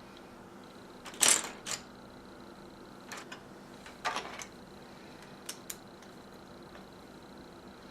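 Plastic LEGO pieces being handled and pressed together during assembly: a few scattered short clicks and rustles, the loudest about a second in, then smaller ones around three, four and five and a half seconds in.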